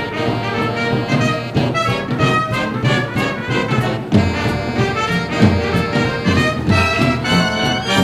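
Big band playing vintage dance music: trumpets and trombones leading over saxophones, with drums and cymbals keeping time.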